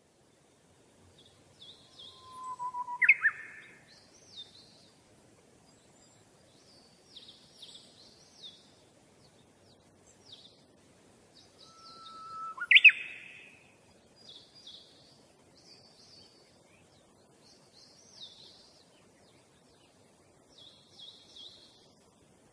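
Small birds chirping and twittering in short, repeated high notes. Twice, about three seconds in and again near the middle, a louder call comes through: a brief whistle that jumps into a sharp upward sweep.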